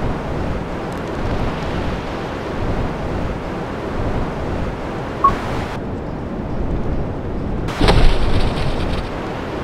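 A steady low rumbling noise, then about eight seconds in a sudden loud crash as a heavy compact mass drops onto a test table, followed by a rushing noisy tail.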